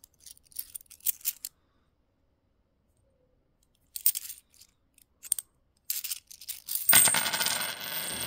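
50p coins clinking as they are handled and set down, a few sharp clicks at a time, with a quiet pause in between. Near the end a dense, loud clatter of many coins tumbling together begins.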